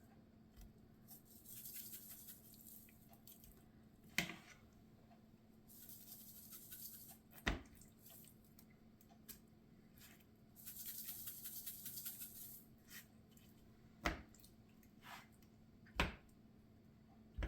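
Seasoning shaken from a spice shaker onto chicken in three rattling shakes of about two seconds each, with several sharp clicks and knocks of a fork and the shaker against the dish between them.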